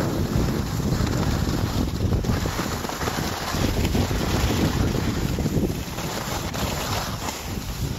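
Wind rushing over a phone's microphone as a skier moves downhill: a steady, loud low rumble of buffeting with no break.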